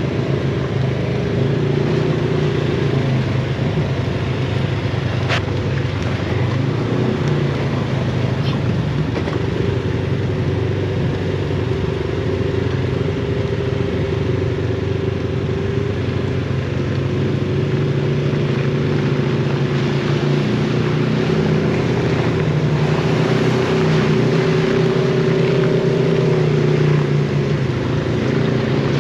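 Side-by-side UTV engine running steadily under light throttle while driving, heard from on board, its pitch holding fairly even and getting a little louder in the last third.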